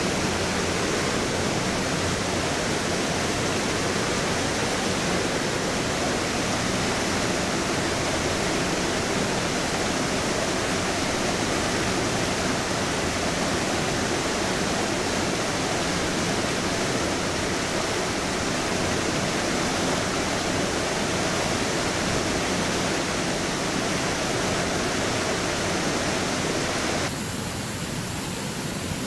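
Steady rush of a rocky creek pouring over low rock ledges and cascades. About two seconds before the end the water sound changes abruptly and becomes a little quieter and thinner.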